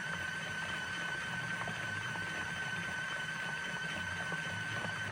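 Portable mini washing machine's motor running steadily through its wash cycle: a constant high whine over a low hum. It cuts off suddenly at the very end.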